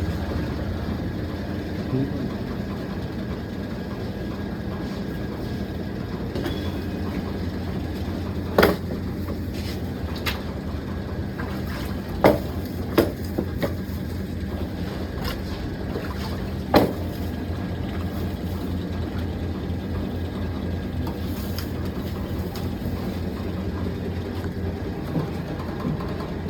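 Ice cream factory machinery running with a steady hum, and about six sharp knocks or clanks standing out in the middle stretch.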